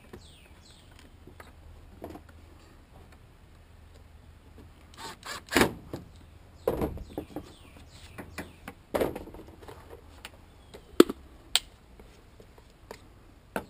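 Hard plastic knocks and clicks from the parts of a Bissell PowerForce Compact vacuum being handled and fitted back together. Several sharp taps come one by one, starting about five seconds in.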